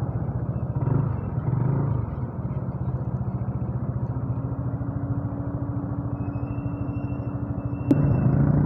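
Motorcycle engine running at low speed with an even, fast pulse, picked up through an earphone microphone padded with cotton and tape. A click comes near the end, and the engine grows louder after it.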